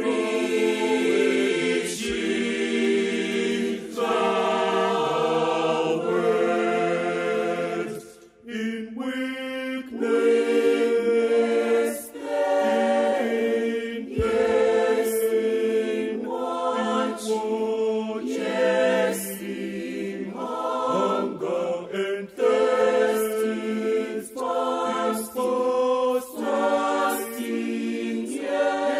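Church choir singing in English, many voices in harmony with a male lead, the lines "weakness, pain, yes in watching, yes in hunger, thirst in fasting" and "fasting, yes in death often from own countrymen". The singing breaks off briefly about eight seconds in.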